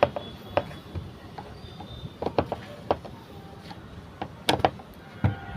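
Irregular, sharp clicks and knocks, about seven in all, unevenly spaced; the loudest come at the very start and about four and a half seconds in.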